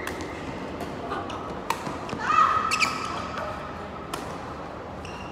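Badminton rally: three sharp racket hits on the shuttlecock, near the start, about a second and a half later and again about four seconds in. Between the hits come short squeaks, which are most likely court shoes on the sports floor.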